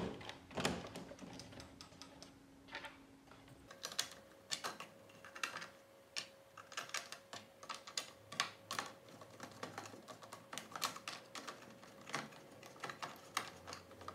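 Irregular light clicks and taps of hard 3D-printed plastic parts being handled and fitted together, with screws being set into the housing. A faint steady hum runs underneath and shifts higher in pitch about four seconds in.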